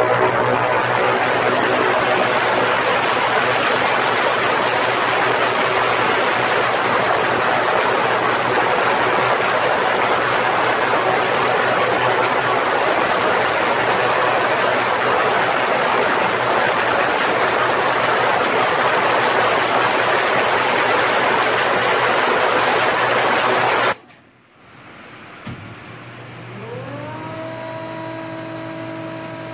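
Industrial ultrasonic cleaning tank running: a loud, steady hiss from the agitated cleaning liquid with a low hum underneath, which cuts off suddenly near the end. A quieter machine whine then rises in pitch and settles into a steady tone.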